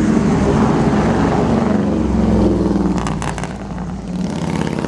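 A heavy diesel engine running close by, a steady low drone that eases off about three and a half seconds in.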